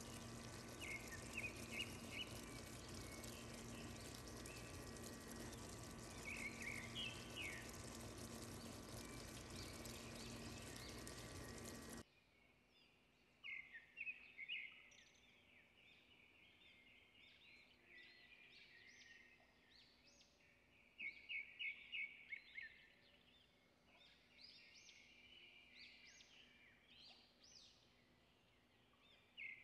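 Faint small birds chirping in quick series. A steady hiss and low hum lie underneath for the first twelve seconds, then cut off abruptly, and the chirps carry on over a quieter background.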